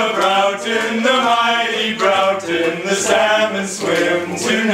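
A cappella group singing in harmony with no instruments, a short chanted phrase repeated over and over.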